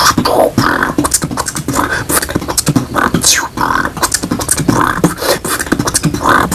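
Human beatboxing: a fast, continuous run of percussive mouth sounds in a steady rhythm, mixed with short hummed vocal tones, and a sweeping vocal effect about halfway through.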